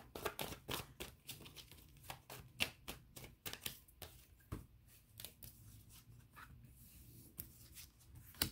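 A deck of tarot cards being shuffled by hand: a faint run of quick, irregular flicks and clicks, thinning out after about five seconds. Near the end, cards are laid down on the table.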